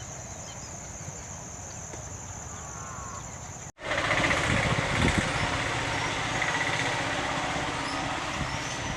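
A steady high insect trill over a low rumble cuts off abruptly a little under four seconds in. It gives way to louder, even outdoor noise with a low rumble and a few faint high bird chirps.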